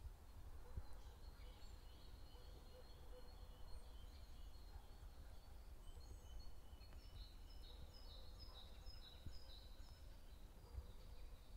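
Faint birdsong outdoors: small birds chirping in quick short notes, busier in the second half, over a low steady rumble.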